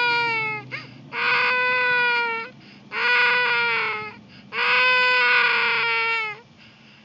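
Toddler crying in long, high wails, four in a row, each lasting one to two seconds with short breaks between them for breath.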